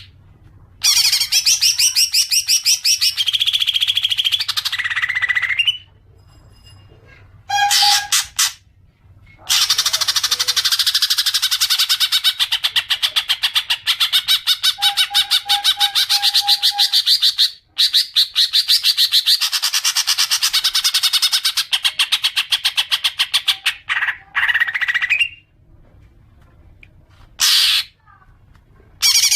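Cucak ijo (greater green leafbird) giving its ngekek: long runs of very rapid, repeated chattering notes. There are three long bursts of about five to eight seconds each, with short calls and brief pauses between them.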